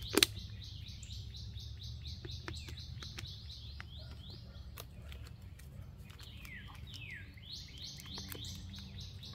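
A songbird calling steadily: a rapid string of short, high, down-slurred notes, several a second, with a few sharp clicks, the loudest just after the start.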